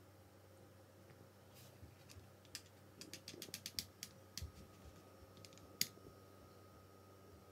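Scrabble letter tiles clicking as they are shuffled along a tile rack, faint and irregular, with a quick run of clicks a few seconds in and one sharper click near the end.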